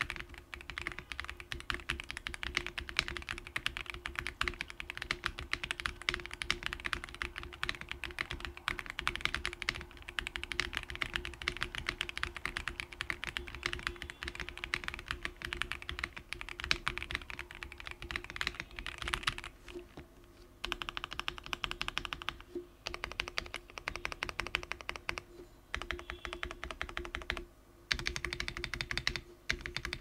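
Fast, continuous typing on a QK65 mechanical keyboard fitted with Akko POM Brown tactile switches on a POM plate: a dense run of keystroke clacks, with a few brief pauses in the last third.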